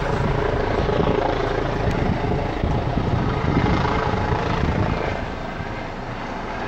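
Helicopter flying low close by, its rotor and engine running steadily. The sound drops somewhat about five seconds in.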